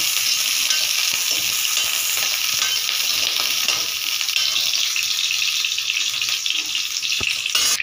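Small onions (shallots) sizzling in hot oil in a kadai, stirred and scraped around with a perforated steel ladle, with a sharp knock of the ladle on the pan near the end.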